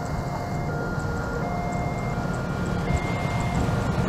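Diesel-electric locomotive hauling a passenger train, its engine rumble growing slowly louder as the train approaches. Faint electronic tones alternate between two pitches about every three-quarters of a second over the rumble.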